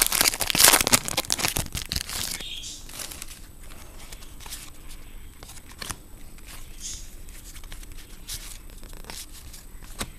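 A trading-card pack wrapper being torn open and crinkled for about two seconds, then only faint occasional light ticks from handling.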